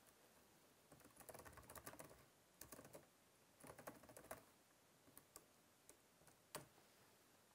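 Faint keyboard typing: soft key taps in short runs, then a few single taps, the last one a little louder near the end.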